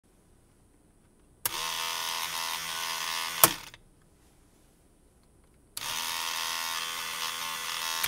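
External electric fuel pump switched on about a second and a half in, running with a steady pitched whine. A sharp tap of a miniature hammer on the inertia switch, about three and a half seconds in, trips the switch and cuts the pump's power, and it spins down and stops. About two seconds later the pump starts again and runs steadily.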